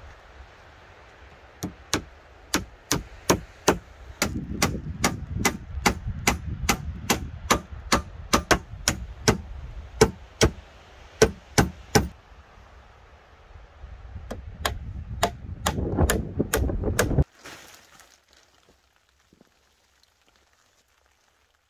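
Hammer blows in a steady run, about two to three sharp strikes a second, then a pause and a shorter run. The sound cuts off abruptly about three-quarters of the way through.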